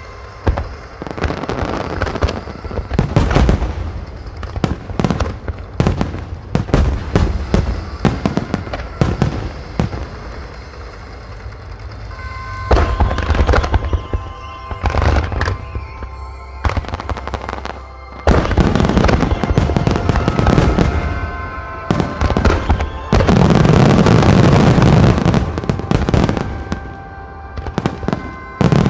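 Starmine fireworks display: aerial shells bursting in quick succession with sharp bangs and crackle. In the last third the bursts build into a dense, continuous, loud barrage, with music playing underneath.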